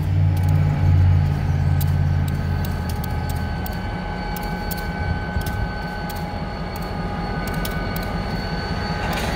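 EMD SD40 diesel-electric locomotive with a two-stroke V16 engine, running as it moves slowly along the track. The engine's low rumble is strong at first and eases off about three and a half seconds in. A steady high whine and scattered clicks continue over it.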